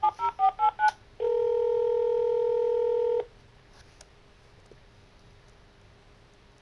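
A phone call being placed: the last few touch-tone digits beep in quick succession, then a single ringback tone sounds steadily for about two seconds as the call rings through. After that only a faint hiss remains.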